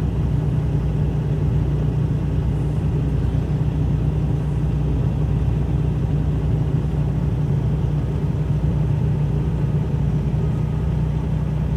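Heavy diesel engine idling steadily, a low even drone with no change in speed.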